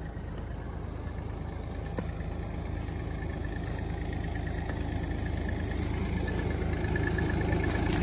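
Bobcat compact excavator engine idling steadily, growing gradually louder as it is approached, with a faint high whine alongside.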